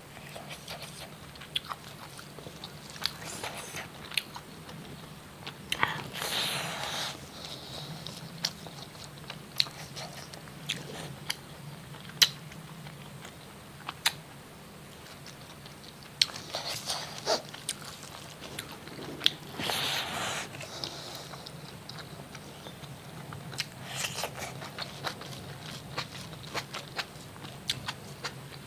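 A person eating fried fish: chewing and crunching, with many small scattered clicks. Two longer, noisier sounds come about six and twenty seconds in.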